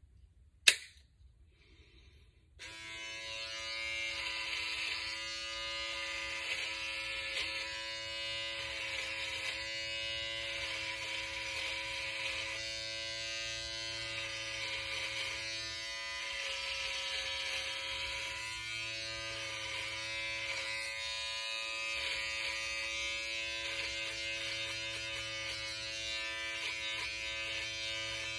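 A single sharp click, then about two and a half seconds in an electric trimmer switches on and runs with a steady pitched buzz as it is drawn over beard stubble on the jaw and chin.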